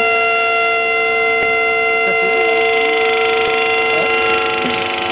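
Electromagnetic emissions from a new car's on-board electronics, picked up by a hand-held copper-wire loop antenna and heard as a steady drone of several held tones: a strong mid-pitched hum with thinner whines above it.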